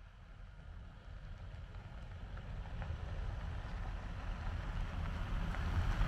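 Toyota pickup truck approaching on a gravel road. The engine and the tyres on gravel grow steadily louder as it nears, with a few small ticks of stones under the tyres.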